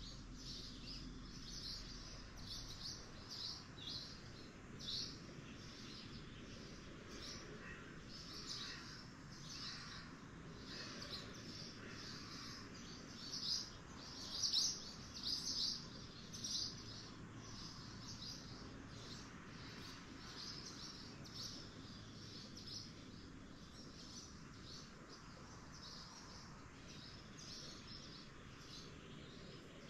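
Small birds chirping: a steady series of short, high chirps, with a few louder ones about halfway through.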